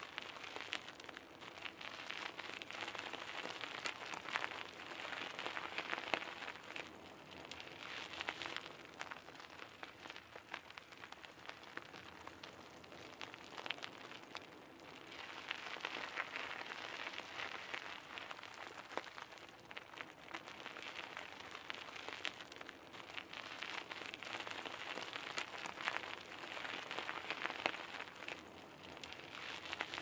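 Bicycle tyres rolling over a gravel path: a continuous crunching hiss full of small clicks from the stones. It grows louder and quieter in stretches, quietest about a third of the way through.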